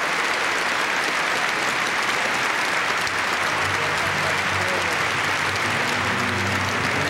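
Large auditorium audience applauding steadily. About three seconds in, music with a low bass line starts up beneath the applause.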